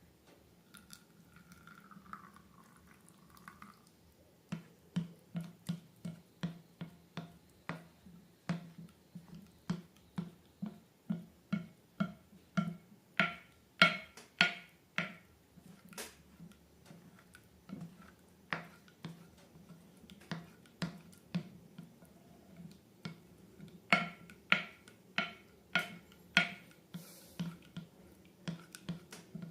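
Slime being pressed and squeezed by hand, giving a long run of sharp, wet, sticky pops and clicks, about two a second and sometimes faster. The pops are loudest in two stretches, one in the middle and one near the end.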